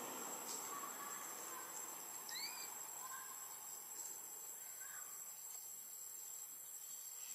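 Steady high-pitched insect buzz, with a couple of faint short rising chirps near the middle.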